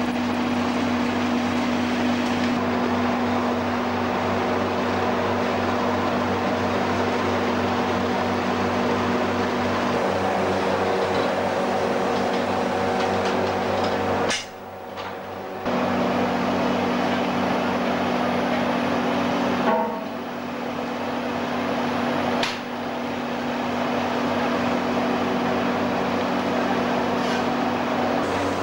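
Steady, loud machinery drone of a working iron foundry, a fan-like rush with a steady hum under it, while molten iron is tapped and ladled. It drops out briefly twice, about halfway through and again a few seconds later, with a sharp click at each break.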